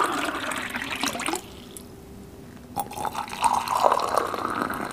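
Water being poured twice: a pour of cold water ends about a second and a half in, and after a short pause a pour of hot water begins. The cold pour sounds higher and sharper, the hot one a little lower.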